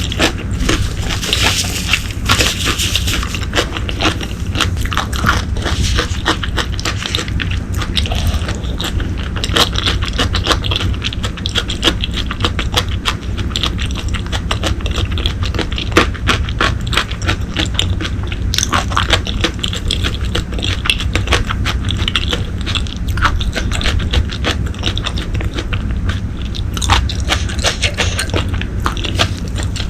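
Close-miked eating of braised pork leg: biting and chewing, heard as a dense, steady run of small wet mouth clicks and smacks.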